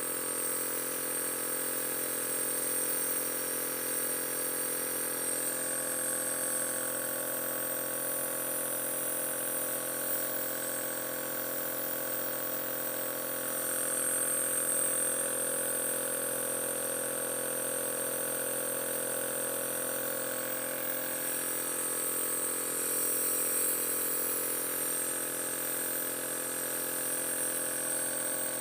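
Compressor nebulizer running steadily as it mists medicine: a constant motor hum with a hiss.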